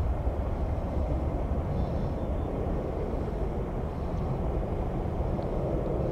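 Steady rumble of jet airliner engines.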